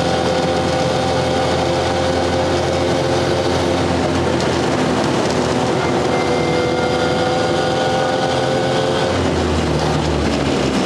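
1929 Ford Model AA truck's four-cylinder side-valve engine and drivetrain running steadily under way, with a steady whine over the engine note. The note changes about nine seconds in.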